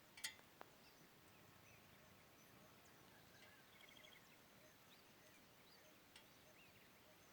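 Near-silent outdoor ambience with faint, scattered small bird chirps. A short high trill of about eight quick notes comes a little before the middle, and a sharp short call or click comes just after the start.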